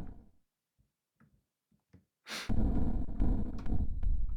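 Software-synthesized noise through a resonant filter with heavy drive, pushed almost into distortion. One note fades out, and after about two seconds of quiet a new note starts with a bright hiss and goes on as a dense, low, gritty noise.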